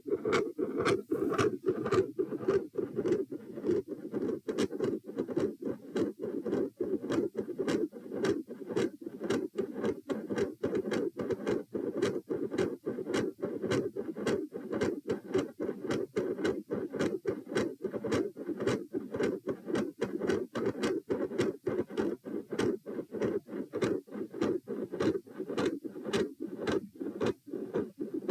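Handheld Doppler probe at the pulmonary position on the chest picking up the heartbeat and blood flow as a regular, rapid pulsing whoosh. The uploader describes it as carrying multiple heart murmurs.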